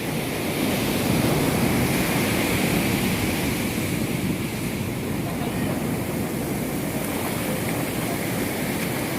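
Sea surf washing steadily onto the beach.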